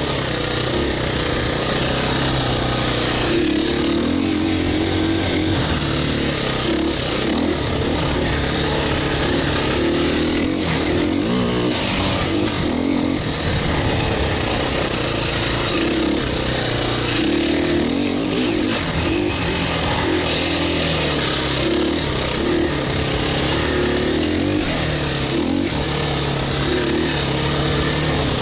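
KTM 350 EXC-F dirt bike's single-cylinder four-stroke engine running under way, its revs rising and falling with throttle and gear changes.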